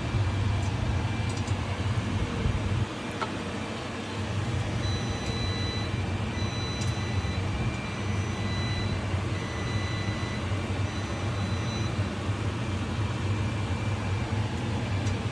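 Boar meat and asparagus sizzling in a hot wok over a steady low hum. The hum dips for a moment about three seconds in. Through the middle, a faint high tone repeats about once every second and a half.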